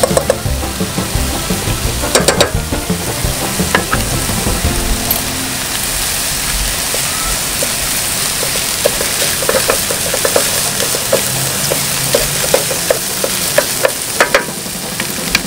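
Onion, small red peppers and basil pesto sizzling in butter in a frying pan, stirred with a wooden spatula that scrapes and now and then clicks against the pan.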